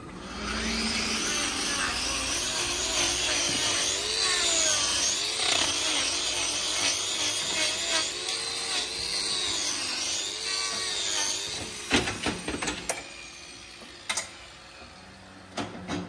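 Handheld power grinder trimming a cow's hoof, its whine dipping and recovering over and over as it bites into the horn, then stopping about eleven seconds in. A few sharp knocks and clicks follow.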